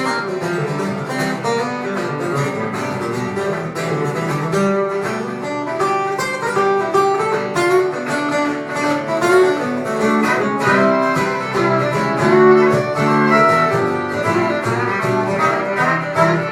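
Country band playing an instrumental passage with no vocals: guitar lead over a steady drum beat, with fiddle.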